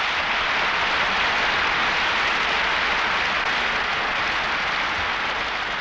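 Large hall audience applauding: dense, steady clapping that fades near the end.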